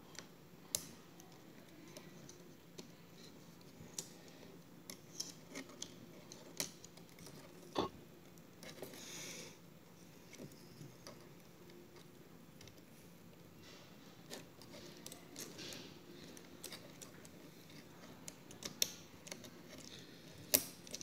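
Faint, scattered clicks, taps and small scrapes of hands working a replacement trackpad cable into an open MacBook Pro's aluminium case, with a short rustling scrape about nine seconds in.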